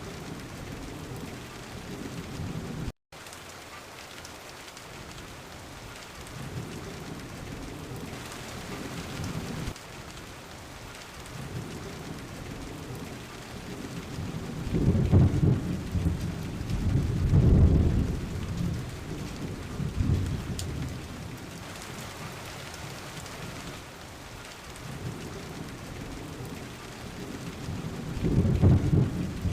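Steady rain hissing down, with thunder rumbling again and again underneath. The strongest peals come about halfway through and near the end. The sound cuts out completely for a moment about three seconds in.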